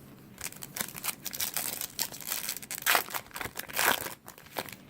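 A baseball card pack's foil wrapper being torn open and crinkled: irregular crackling and ripping, with the loudest rips about three and four seconds in.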